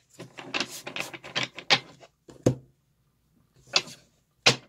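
Tarot cards being handled and tapped against a wooden tabletop: a quick run of clicks and rustles for about two seconds, then three single sharp taps, the last two the loudest.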